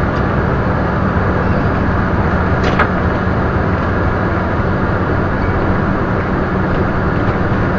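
Motorhome engine and road noise heard inside the cab while driving slowly, a steady hum with a low drone. A single short click about three seconds in.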